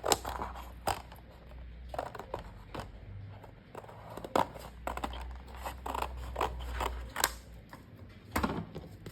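Cardstock being handled and cut at a craft table: a string of irregular crisp snips, clicks and paper rustles.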